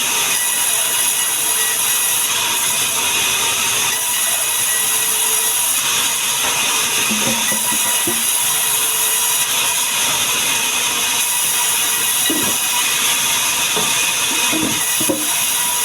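Sawmill saw running through sengon wood, a loud, steady high-pitched hiss with no break.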